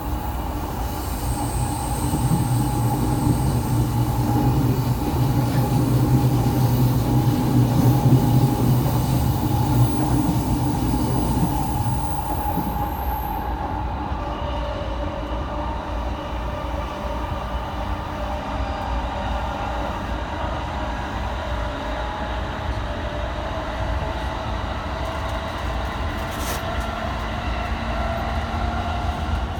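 A JR E217 series electric train running, heard from inside the car: a steady rail rumble with a low hum, louder for about the first ten seconds. In the second half, fainter tones climb slowly in pitch.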